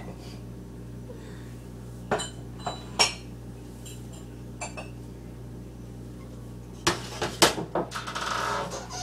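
Kitchen dishes and glassware clinking and knocking as they are handled at a cabinet: a few separate clinks, then a quick run of clatters near the end followed by a brief scraping noise.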